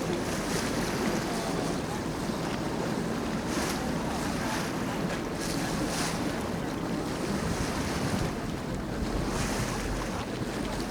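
Tour boat under way: a steady rush of water along the hull over the low drone of its engine, with wind buffeting the microphone and a few brief louder splashes.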